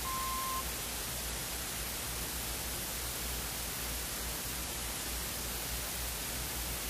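Steady tape hiss over a low hum, opening with a single short steady beep of about half a second at one pitch: the audible slide-advance tone of an old slide-tape training programme.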